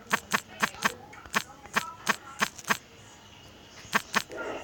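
A series of sharp taps, about three a second for the first three seconds, then two more after a pause.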